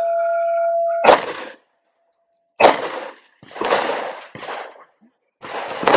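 Gen 2 Glock 23 .40 S&W pistol fired about five times, roughly a second apart. A steel target plate rings briefly after a hit near the start.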